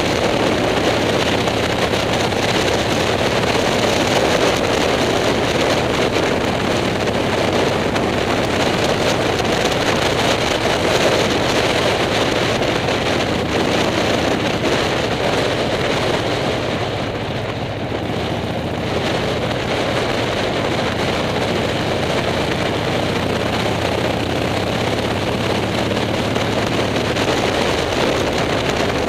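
Motorcycle engine running at a steady cruise with heavy wind rush on the microphone; the sound dips briefly about two-thirds of the way through.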